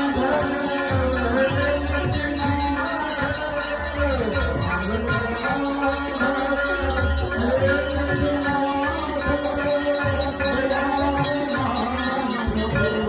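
Hindu aarti devotional music: a fast, even clatter of ritual bells and hand cymbals over repeated low drum beats and long held tones.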